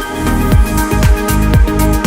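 Electronic dance background music with a steady kick-drum beat and deep bass.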